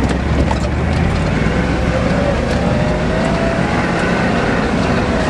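Ford diesel truck engine pulling steadily under load up a hill, with scattered short knocks and rattles.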